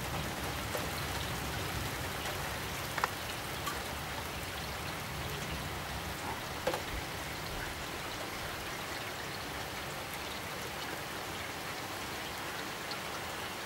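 Heavy rain falling steadily in a thunderstorm downpour, with a few close drops striking sharply, the two loudest about three seconds in and near the middle.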